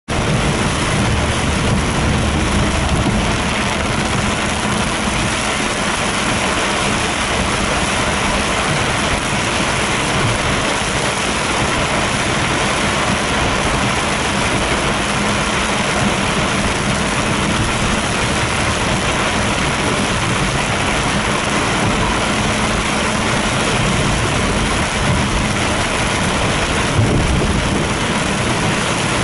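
Torrential rain beating on a car's roof and windscreen, heard from inside the car as a loud, steady, dense hiss. The car's engine runs faintly beneath it.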